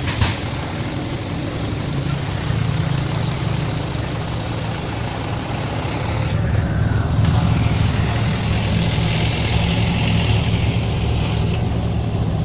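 Motor vehicle engine running steadily with a low hum and road noise, the hiss growing louder for a couple of seconds past the middle.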